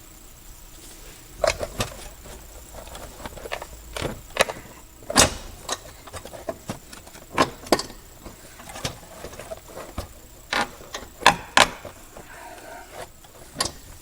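Irregular sharp clicks and knocks, well over a dozen, of tools and car parts being handled during hands-on work under the hood.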